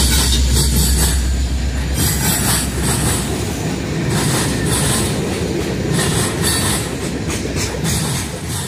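Freight train passing: a diesel locomotive's low engine drone for about the first two seconds, then freight cars rolling by with a rhythmic clatter from the wheels and repeated high-pitched wheel noise.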